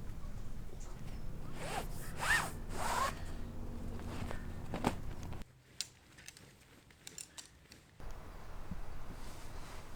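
A zipper pulled in a few quick strokes about two seconds in, then a single sharp click.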